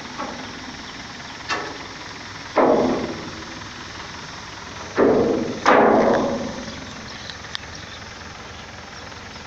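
Loud knocks at irregular intervals, about a second and a half in, near three seconds, and two close together around five to six seconds, each dying away over about half a second. A steady background hiss runs underneath.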